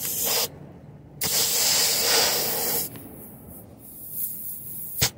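Compressed air hissing from a truck tyre's valve stem as a dial tyre-pressure gauge's chuck is pressed on. There is a short hiss at the start, then a longer one of about a second and a half beginning about a second in. A single sharp click comes near the end.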